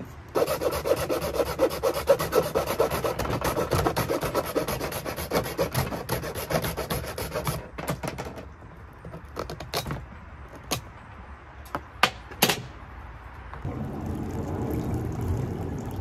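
A hand saw cutting through a PVC pipe in rapid back-and-forth strokes for about seven seconds, followed by a few sharp knocks. Near the end, a steady rush of water from a small fountain pump bubbling water up through the centre of the bird-bath basin.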